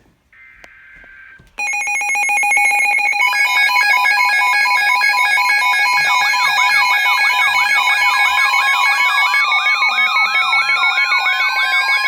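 Emergency-alert tones: a short burst of warbling data tones, then, just under two seconds in, a sudden loud stack of electronic alarm tones, steady tones and pulsing beeps sounding together. From about six seconds rapidly repeating up-and-down sweeps join in, and from about eight seconds a single slowly rising tone.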